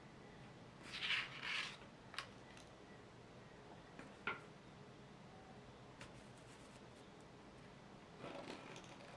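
Faint drawing strokes on paper: two short scratching strokes about a second in, then a few light taps and clicks.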